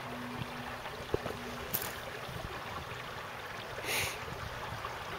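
Shallow highland stream trickling steadily over stones. A faint steady hum is heard for the first couple of seconds, and a short hiss comes about four seconds in.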